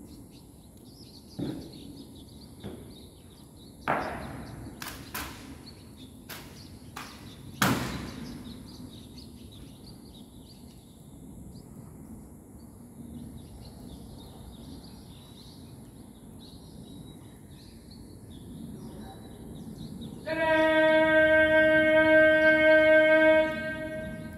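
Sharp knocks and claps of an honor guard's rifle and heel drill, about seven in the first eight seconds. Near the end a steady pitched tone sounds for about three seconds, the loudest sound here.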